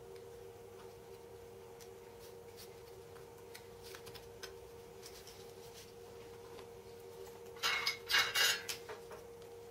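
Small parts being handled on a cutting mat: soft clicks as plastic terminal-block connectors are fitted to a circuit board, then a short cluster of louder scraping and rustling near the end as the board is laid down and the solder wire is positioned. A faint steady hum runs underneath.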